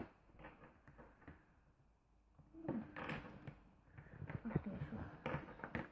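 Quiet handling of plastic toys: scattered faint clicks and taps, with a nearly silent stretch in the first half and a brief faint voice about three seconds in.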